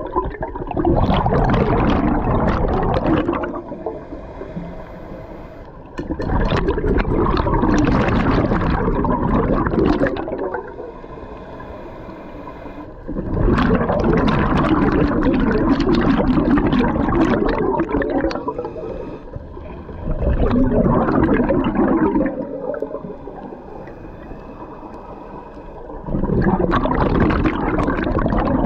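Scuba diver breathing through a regulator underwater: five loud, bubbling exhalations of about two to four seconds each, with quieter gaps between them as the diver breathes in.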